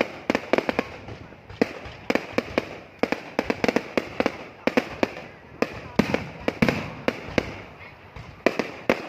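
Fireworks display going off: an irregular string of sharp bangs and cracks, often several in quick succession, with a few deeper booming bursts about two-thirds of the way through.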